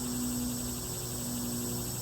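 Steady high-pitched chorus of insects such as crickets, with a low steady hum beneath it.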